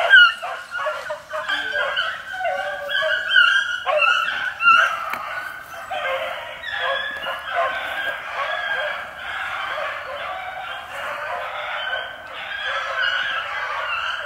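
Pack of young beagles baying together on a rabbit's trail. Separate bawls and yelps at first, then from about four seconds in a continuous chorus of several voices overlapping.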